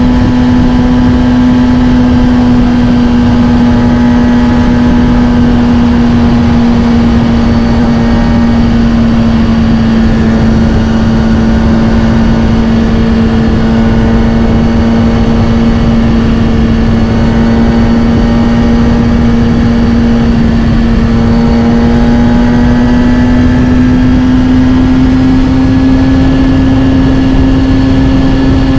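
Kawasaki Ninja ZX-6R's inline-four engine through a Scorpion titanium exhaust, running at a steady speed under way. The pitch sags slightly through the middle and rises a little near the end.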